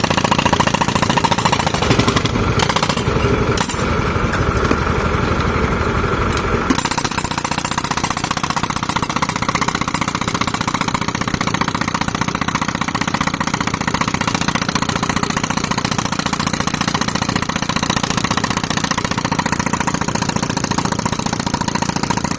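Tractor engine running an air compressor. It runs heavier and rougher for about the first seven seconds, then settles to a steadier, lighter running.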